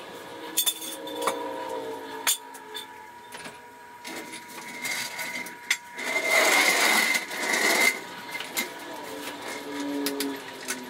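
Metal clinks and knocks of a hydraulic floor jack and jack stands being handled as a truck is let down. About six seconds in there is a loud rushing noise lasting about two seconds.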